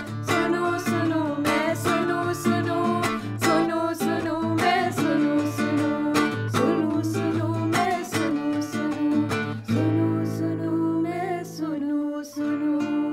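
Instrumental close of a Hindi devotional song: plucked strings struck in a steady rhythm over a sustained drone, turning to held notes that ring out near the end.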